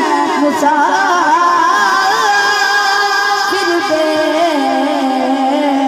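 A boy singing a Punjabi naat into a microphone: a long, ornamented melodic line of held notes that waver and bend in pitch.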